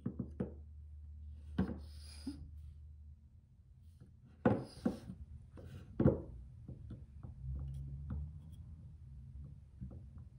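Glass candle jar knocking and scraping against a cast of a hand on a metal countertop as it is fitted into the fingers. There are a handful of sharp knocks, the loudest about four and a half and six seconds in, with light ticks and rubbing between.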